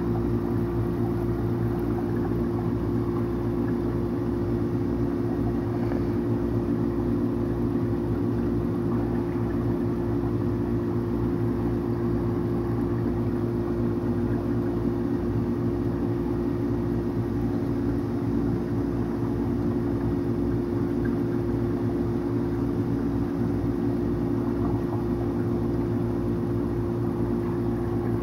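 Aquarium pump running: a steady low hum with a constant droning tone and no change throughout.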